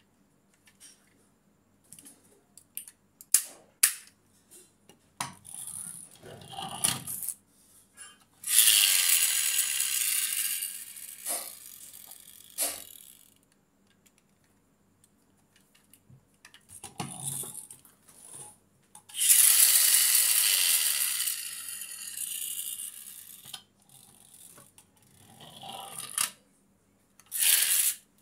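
Die-cast toy SUV's pull-back motor: the car is dragged back with a short rasping ratchet, then let go to whir off across the table, the whirr starting loud and fading over about four seconds. This happens twice, with a third short run near the end.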